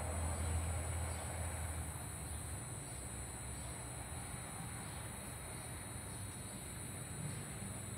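Steady high-pitched insect chorus over a background hiss, with a low rumble in the first two seconds that then fades.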